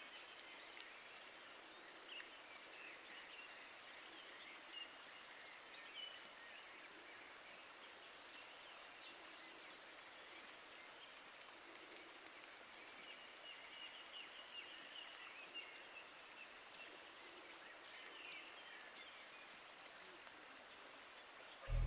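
Faint outdoor ambience with distant small birds chirping now and then. Music comes in abruptly at the very end.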